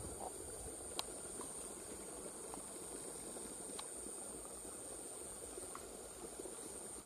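Faint forest ambience: a steady high-pitched insect drone over an even hiss, with a few faint clicks.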